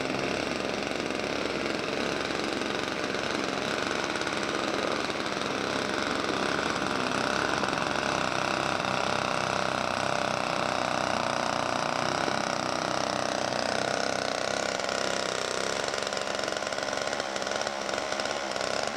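Small single-stage walk-behind snowblower running steadily as it is pushed along, clearing snow, its engine pitch wavering slightly as it works.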